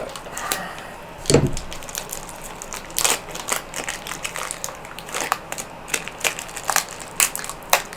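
Cardboard box and the plastic bag of cards inside being handled and opened: irregular crackling and crinkling, with a dull thump about a second in.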